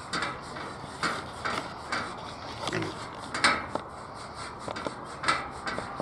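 A pig rubbing itself against its metal feeder: irregular rattling and knocking, several knocks a second, as it scratches an itch.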